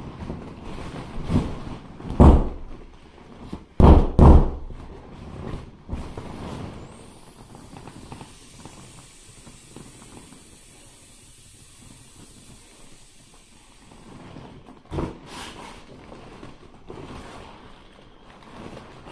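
Vinyl of a punctured, mostly deflated inflatable wolf pool toy being squeezed and wrestled, with several loud thumps: one about two seconds in, two close together about four seconds in, and another about fifteen seconds in.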